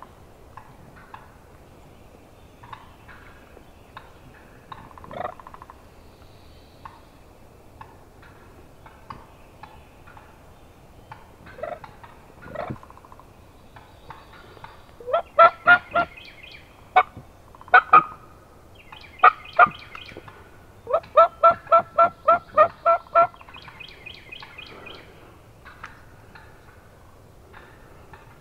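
Series of turkey yelps: loud, evenly spaced short calls in runs, starting about halfway through, the last run a quick string of about eight yelps.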